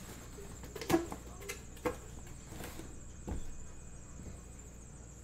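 A cardboard shoe box being handled: a few sharp knocks and scrapes, the loudest about a second in and another near two seconds, then a dull thump a little after three seconds.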